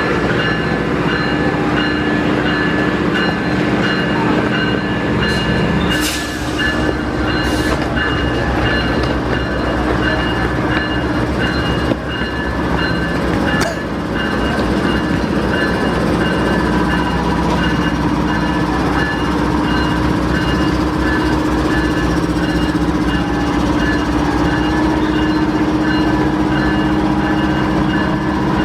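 Locomotive running at a standstill: a loud, steady mechanical drone with constant tones over it. Two short hissing bursts come about six and seven and a half seconds in.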